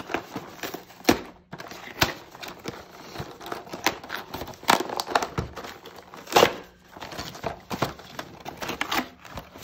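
Cardboard toy box being torn open by hand: a run of irregular rips and crinkles of the paperboard and its packaging, the sharpest about a second in, at two seconds, and again past six seconds.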